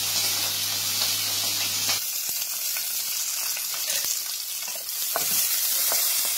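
Green chillies sizzling as they fry in hot oil in a wok, with a spatula stirring them.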